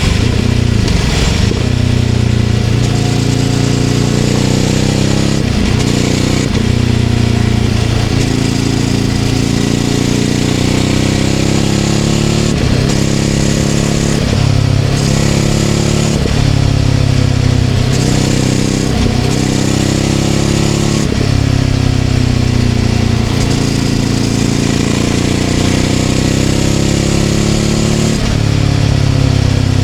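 Ducati Scrambler 800's air-cooled L-twin engine running through a Leovince LV-10 exhaust while riding. Its pitch climbs and drops back again and again.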